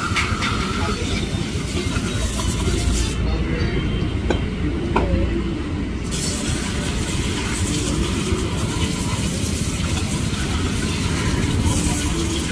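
Pressure-washer jet hissing against a motorcycle cylinder head, rinsing off degreaser, over a continuous low rumble. About three seconds in, the spray stops for roughly three seconds while the rumble goes on, then starts again.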